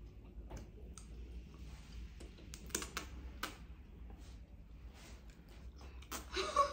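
Close eating sounds: spicy noodles slurped and chewed, with scattered small clicks and lip smacks. A short louder mouth sound comes near the end.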